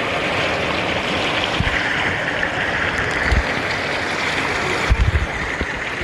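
Mountain stream water pouring over granite rocks close to the microphone: a steady rushing splash, with a few short low thumps partway through and again near the end.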